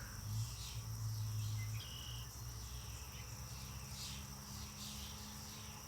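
Insects outdoors trilling steadily, a thin high-pitched chorus with faint repeated chirps. A faint low hum runs under it for the first two seconds.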